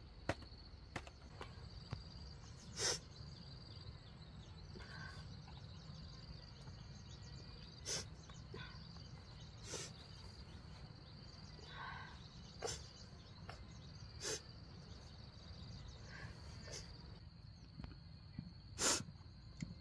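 Steady high-pitched insect drone, with scattered sharp knocks or cracks every couple of seconds; the loudest comes near the end.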